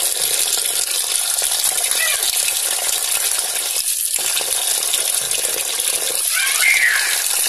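Kitchen tap running steadily onto boiled vermicelli in a steel bowl, the water splashing as a hand works through the noodles to rinse them.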